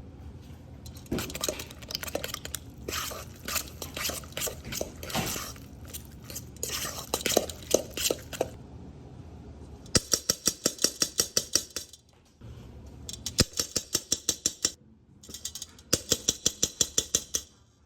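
A utensil clinking and scraping in a mixing bowl as ingredients are stirred together, then three spells of fast, even beating strokes, about six a second, against the bowl.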